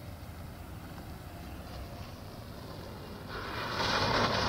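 A Renault Mégane doing donuts: its engine runs as a low steady rumble, then about three seconds in a loud hiss of scrubbing tyres comes in as the car spins close by.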